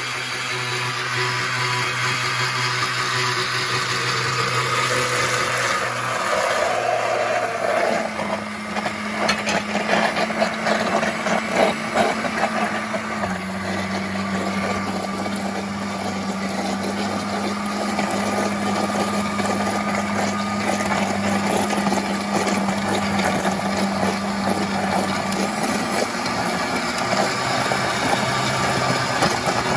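Oster countertop blender running, puréeing onion, garlic and chili in warm water. Its motor hum steps to a different pitch several times as the speed setting changes, with a few seconds of clattering in the first half.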